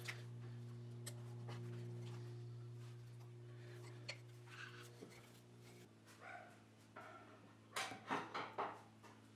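Faint handling sounds of a wooden phone stand and its charging cable on a workbench, over a steady low hum that changes about two-thirds of the way through. Near the end a few louder knocks and rustles as a phone is set onto the wooden stand.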